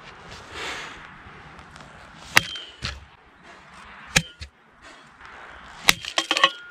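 Cold Steel pole axe struck hard against a steel post: a few sharp, ringing impacts, the loudest about two and a half seconds in, and the last one near the end followed by a quick clatter of smaller knocks.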